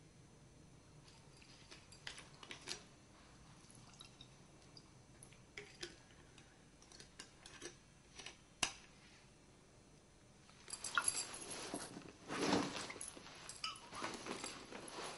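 Scattered small clicks and taps of small objects being handled, then, from about ten seconds in, louder rustling of fabric as a holdall bag is lifted and handled.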